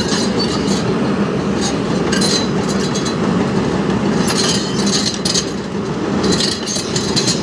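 Heavy diesel engine of an excavator running steadily, with scattered short metallic clinks over it.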